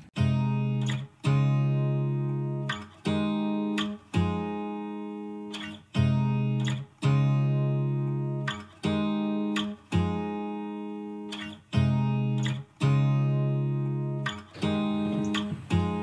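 Background music: an acoustic guitar strumming chords, a new chord struck every second or so and ringing out until the next.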